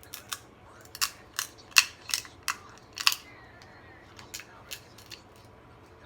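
Snow crab leg shells cracking and snapping open: a quick run of sharp cracks, loudest a little under two seconds in, followed by a few fainter clicks.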